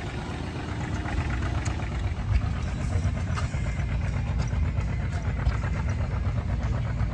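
An engine idling steadily, a regular low pulsing beat.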